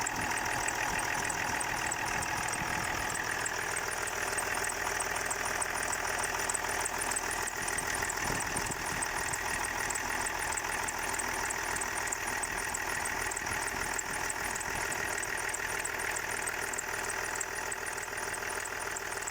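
Land Rover Discovery 4 engine idling steadily, with a steady whistle over the engine note, the whistle the owner filmed it for. A fast, even ticking runs along with it.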